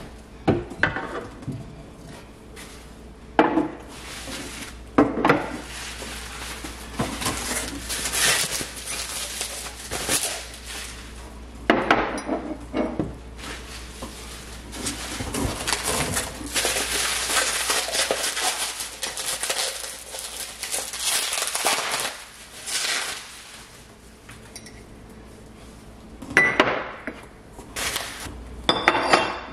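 Ceramic mugs and tumblers knocking and clinking as they are set down one by one on a kitchen cabinet shelf: a series of separate sharp knocks.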